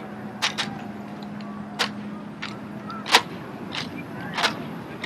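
Drill rifles being handled in the manual of arms: a series of sharp slaps and clacks, about seven, at an even pace of a little more than one a second, over a steady low hum.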